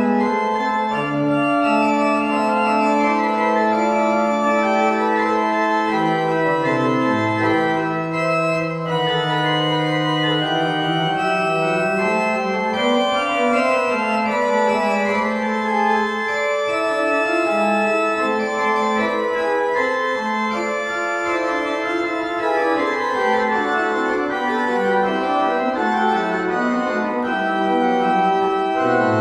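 Church pipe organ playing: long held chords over a slowly moving bass line.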